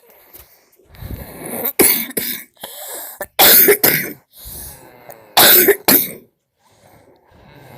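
A person coughing hard in pairs: three double coughs spaced about a second and a half apart, with noisy breathing between them.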